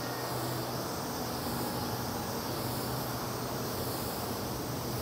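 Aerosol can of Krylon clear acrylic spraying a clear coat in one continuous steady hiss that swells gently about once a second.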